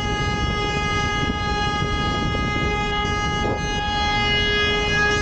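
A vehicle horn held down in one long, continuous blast on a single steady pitch, cutting off suddenly after about five seconds: urgent honking at a cyclist on the road ahead.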